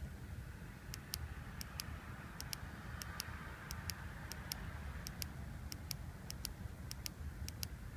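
Mitsubishi Lancer Evolution 560cc fuel injector clicking as it is pulsed from a 9-volt battery, sharp irregular clicks often in close pairs, about three a second. The internals are clicking: the sign of a working injector.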